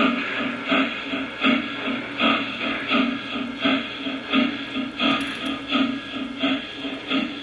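Lionel JLC Legacy Union Pacific Big Boy model locomotive's onboard sound system playing steam exhaust chuffs as it runs slowly: a steady rhythm of loud chuffs, about three every two seconds, with softer beats between.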